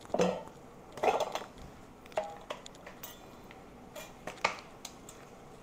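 Kitchen handling sounds while saheena is rolled: two soft rustling swishes near the start, then a handful of light, scattered clinks of utensils and dishes.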